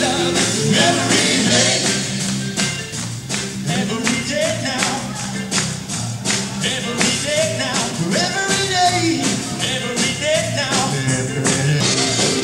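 Live blues jam led by horns and trumpets, with a steady beat underneath.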